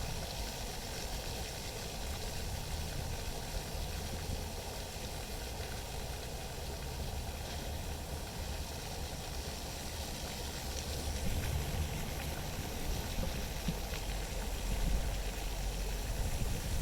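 Wind buffeting the microphone: a steady hiss with low rumbling gusts that grow stronger near the end.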